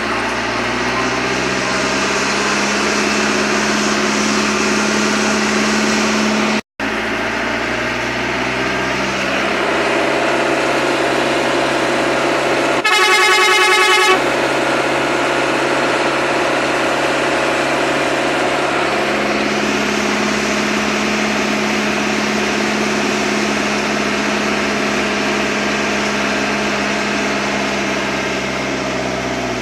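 Hino FB truck's diesel engine running steadily on the move, with one horn blast lasting about a second roughly thirteen seconds in. The sound cuts out for an instant about seven seconds in.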